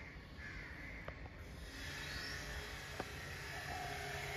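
Faint bird calls, a few short falling notes, over a steady low hum and hiss, with a couple of soft clicks.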